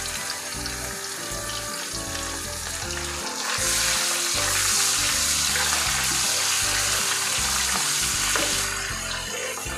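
Thin-sliced beef and crushed garlic sizzling in hot oil in a wok, stirred with a wooden spatula. The sizzle grows louder about three and a half seconds in as the meat is spread and stirred, and eases again near the end.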